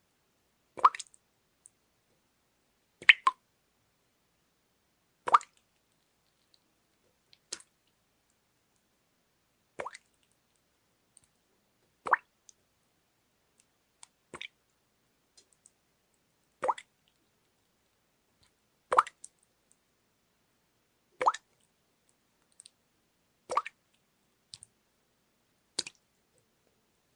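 Water dripping steadily: single drops plopping about once every two and a quarter seconds, with silence between and now and then a smaller drop just after.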